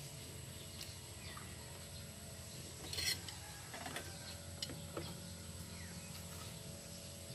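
Light clicks and taps of a metal spoon and dishes on a table, with one louder clatter about three seconds in, over a low steady hum.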